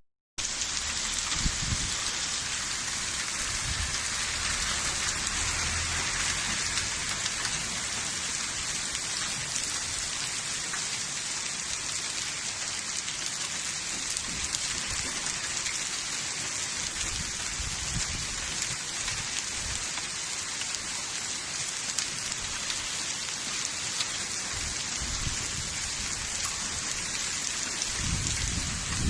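Heavy rain falling steadily during a thunderstorm, a dense, even hiss of drops hitting surfaces.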